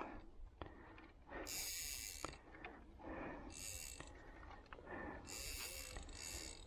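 Spinning reel on a feeder rod being cranked in three spells of about one to two seconds each, its gears whirring.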